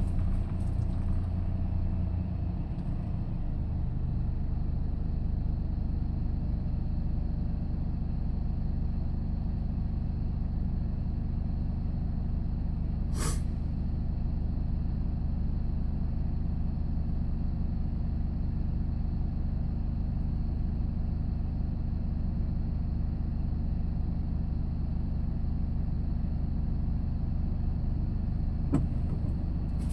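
Steady engine hum and road noise heard inside a moving vehicle's cabin, with a shift in the engine note about three seconds in and a single sharp click about thirteen seconds in.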